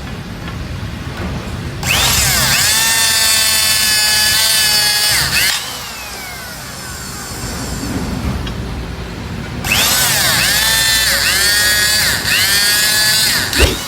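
Electric-hydraulic handheld rebar cutter (CTL-25, 220 V) working twice. Each time its motor and pump whine with a pitch that sags and wavers under load as the blade presses through steel rebar, then a sharp crack as the bar shears. A low steady hum runs between the two cuts.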